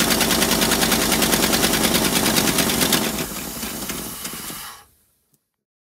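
Chrysler 413 big-block V8 of a 1972 Superior motorhome running with its air cleaner off, loud, with a rapid, even firing rhythm. It drops in level about three seconds in and stops shortly before five seconds in.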